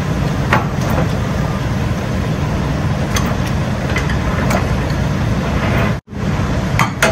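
Diesel truck engine idling with a steady low rumble, with a few faint clicks from the semi-trailer's landing-gear crank being turned by hand. The sound cuts out briefly about six seconds in.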